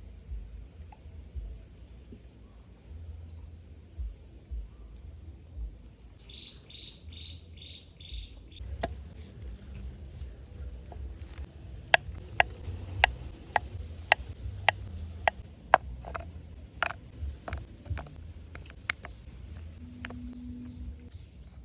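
A run of sharp knocks or taps, about two a second at their loudest, preceded by five short high chirps.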